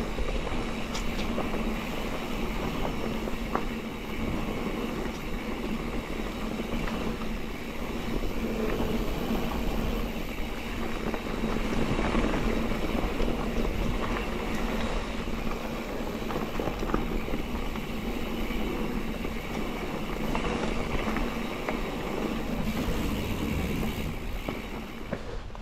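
Mountain bike riding fast down dirt singletrack: a steady rush of knobby tyres rolling on packed dirt and wind on the microphone, with a few sharp rattles from the bike over bumps.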